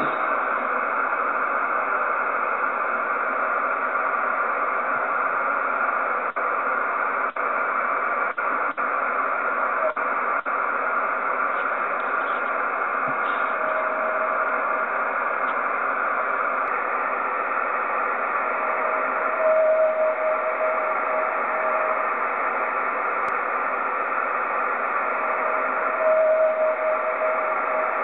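Radio receiver hiss tuned to a TV station's 49.750 MHz carrier, with the carrier popping up as a steady whistle-like tone each time a meteor trail reflects the signal. There is a faint ping about 14 s in, a louder one lasting about two seconds near 20 s, and another near the end. The hiss briefly drops out a few times around 6 to 10 s.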